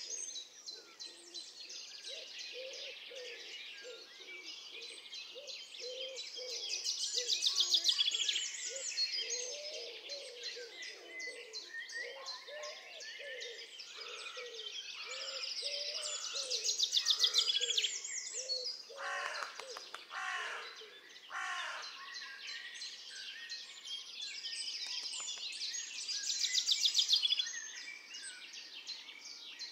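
Chorus of birds chirping and singing, with a rapid high trill coming back about every ten seconds and a few louder calls a little past the middle.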